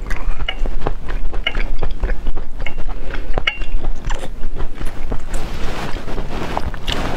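Close-miked wet chewing and mouth clicks of someone eating raw seafood, many short sharp clicks over a steady low rumble.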